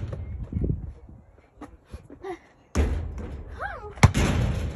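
A basketball being played: sharp thuds and bounces, the loudest impact about four seconds in, with two loud stretches of rushing noise starting suddenly, one a little before three seconds in and one right after that impact.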